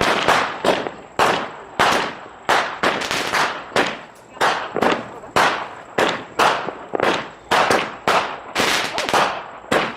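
Consumer fireworks firing a rapid, steady series of sharp bangs, roughly two a second, each with a short fading tail.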